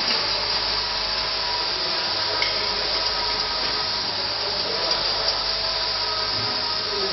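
Steady mechanical hiss with a faint hum from the tea bag packing machine, with a few faint light clicks as a hand tool works on the dosing cup bracket.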